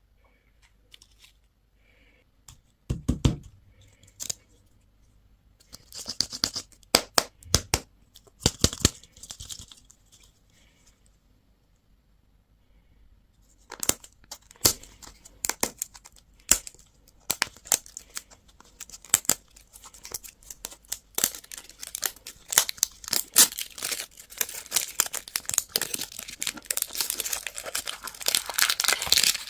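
Plastic candy packaging being torn open and crinkled by hand. A dull knock comes about three seconds in, then short bursts of crinkling, a pause, and near-continuous crackling and tearing that grows denser toward the end.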